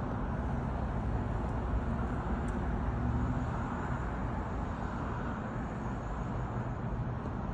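Steady low rumble of a car idling in a parking lot, with traffic noise behind it.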